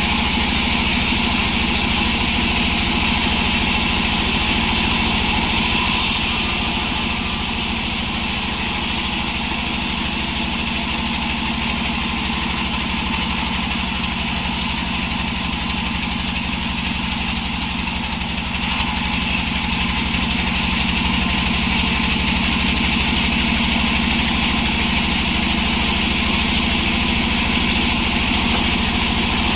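Sawmill's engine running steadily. It drops slightly in level about six seconds in and comes back up about two-thirds of the way through.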